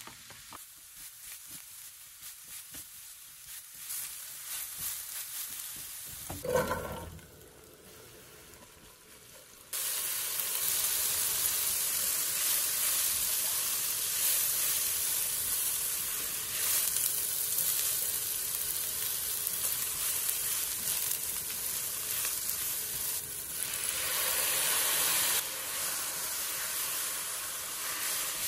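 Vegetables and plant-based ground crumbles sizzling in hot oil in a non-stick frying pan as they are stir-fried with a spatula. The loud, steady sizzle starts abruptly about ten seconds in; before that the pan is quieter, with a brief louder sound.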